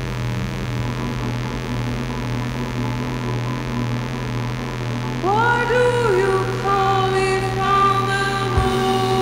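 Synthesizer drone over a steady low hum, with a wavering tone as its knobs are turned. About five seconds in, a new note slides up in pitch and settles into a held tone, and more held notes layer over it.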